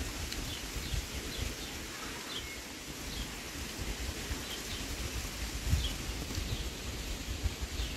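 Wind buffeting the microphone in an uneven low rumble, with faint short bird chirps every second or so.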